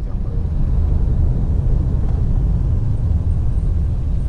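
Steady, deep road and engine rumble of a moving car, heard from inside the cabin.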